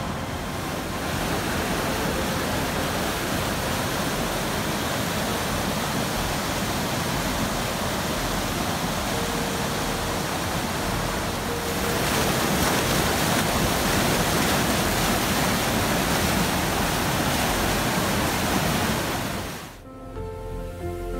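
Creek in spring flood rushing over rocks and small falls: a steady, dense rush of white water, louder about halfway through. Near the end the water sound cuts off and music begins.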